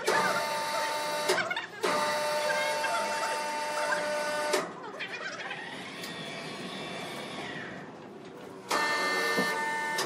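Electric crane hoist motor whining steadily as it lifts a heavy timber beam on steel cables. The whine cuts off briefly about a second in, stops again about halfway through, and comes back near the end. In the gap a softer whine slides up, holds, then slides back down.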